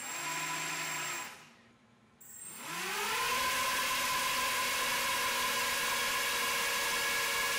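ZMR-250 mini quadcopter's brushless motors and propellers: a low hum for about a second that stops, then the motors spin up in a rising whine and hold a steady high-throttle whine. This is a static current-draw test, with the 3-cell pack pulling about 17 to 20 A.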